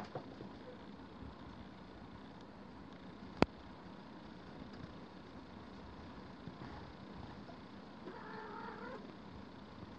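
Steady low outdoor background noise, with a single sharp click about three and a half seconds in and a faint wavering tone near the end.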